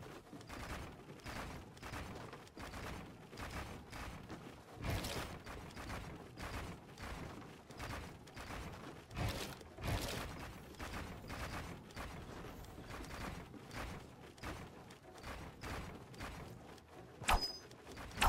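Faint, irregular clicks and knocks, a few a second, with two sharper knocks near the end.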